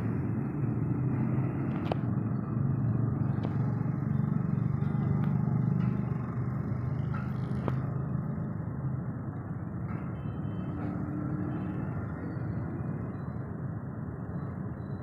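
Massey Ferguson 385 tractor's diesel engine running under load as the tractor backs down loading ramps. It is louder for a few seconds near the start and then eases off, with a few sharp clicks.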